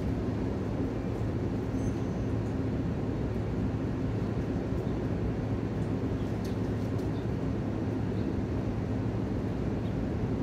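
Steady low mechanical hum with a constant drone, like machinery or an engine running, unchanged throughout, with a few faint clicks.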